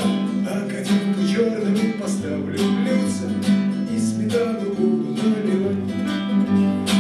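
Nylon-string classical guitar strummed in a steady rhythm, about two strums a second: an instrumental passage after the last sung line of the song.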